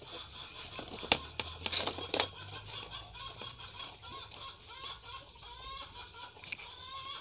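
Birds calling over and over in short chirps, with a few sharp clicks about one to two seconds in.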